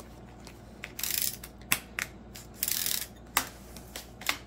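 Handling of a Sebo vacuum's plastic telescopic wand: a series of sharp clicks and knocks, with two short scraping rasps about a second and two and a half seconds in.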